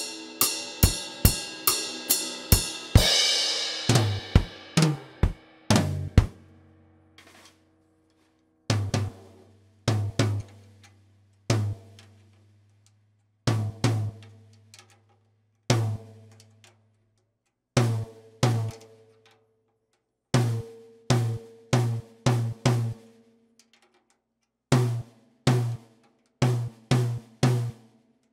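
Acoustic drum kit played on its own: a quick run of strokes with ringing cymbals for the first few seconds, a short pause, then a slow, spaced pattern of single and paired strokes on the toms and bass drum, each with a low ring, and silence between the phrases.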